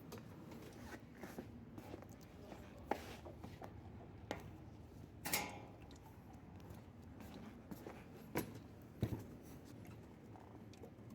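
Hand tools knocking and clinking on metal parts during power steering pump work. There are a few separate sharp knocks over a faint steady background, the loudest about five seconds in with a short ring.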